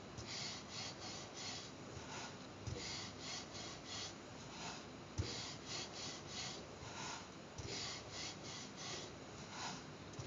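Wooden rolling pin rolled back and forth over floured dough on a wooden board: a repeated rasping rub, about three strokes a second, with a few light knocks of the pin on the board, the sharpest about five seconds in.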